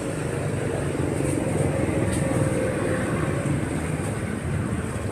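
Street traffic noise: a steady rumble of vehicle engines on the road.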